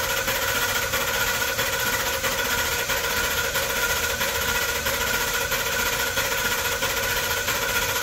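Ford 6.8-litre V10 cranking on the starter without firing, fuel cut off in clear-flood mode, with a steady, even cranking rhythm. The engine has a misfire on cylinder 10 that the mechanic takes for a loss of compression on one cylinder.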